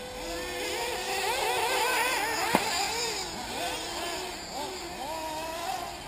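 Several 1/8-scale nitro RC buggy engines racing, their high-pitched whines overlapping and rising and falling as the cars accelerate and brake around the track. A sharp click sounds about two and a half seconds in.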